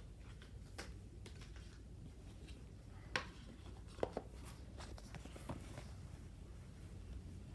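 Scattered light clicks and taps of small items and packaging being handled, with two sharper knocks about three and four seconds in, over a low steady hum.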